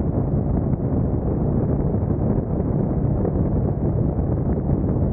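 Harley-Davidson Street Glide Special's Milwaukee-Eight V-twin engine and exhaust running steadily at highway speed, about 90 mph, mixed with wind rushing over the bike-mounted microphone.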